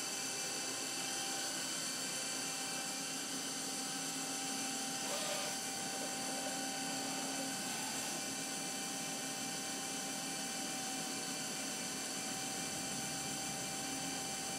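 Milltronics RH-20 CNC mill running a program: a steady machine hum with several high, steady whining tones, and a short rising whine about five seconds in.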